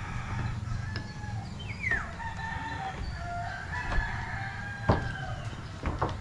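A rooster crowing: a falling note, then a long held call lasting about three seconds, over a low steady rumble. A few sharp knocks cut through, the loudest about five seconds in.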